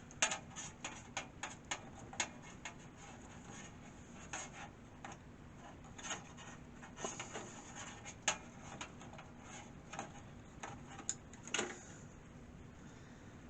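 Irregular small clicks, taps and rubbing from data cables being handled and plugged into a PC's connectors during assembly. The clicks thin out near the end.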